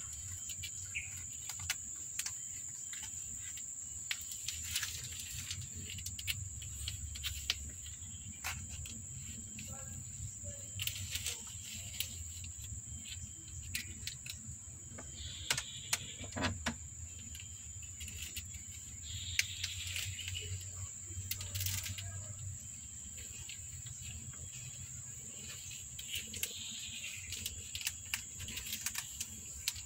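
Steady high-pitched insect drone, such as crickets, over a low background rumble, with scattered faint clicks and a few brief faint high calls.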